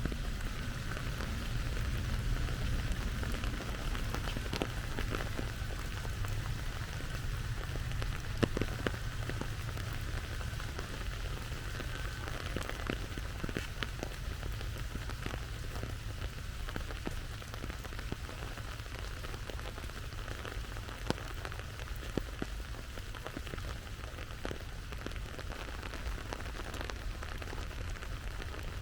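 Steady rain falling, with many scattered sharp drip ticks over an even hiss and a low background rumble.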